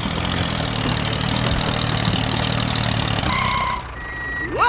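Tractor engine sound effect idling, a steady low rumble for most of the stretch, ending with short tones and a quick rising glide near the end.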